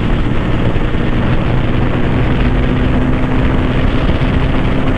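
Bajaj Pulsar NS200's single-cylinder engine pulling hard at full throttle, its pitch held steady and creeping slightly upward, under heavy wind rush on the rider's microphone.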